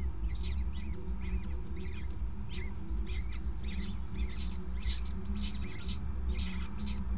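Downy peregrine falcon chicks giving short, high, thin begging calls about twice a second while the adult feeds them, over a steady low rumble.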